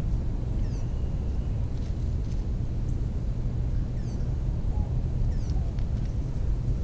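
A steady low rumble, with a few short, high, falling bird chirps and some faint clicks scattered through it.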